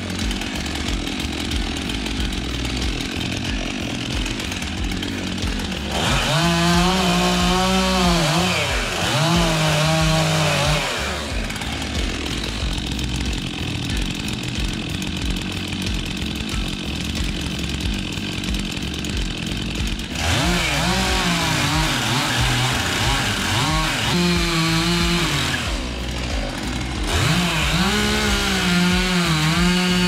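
Stihl MS 400 C-M two-stroke chainsaw at high revs, cutting into a birch trunk. Its pitch dips and recovers over and over as the chain loads up in the wood, with a steadier stretch in the middle.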